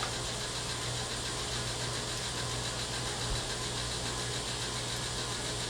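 Steady low hum with an even background hiss, unchanging throughout, with no distinct clicks or knocks.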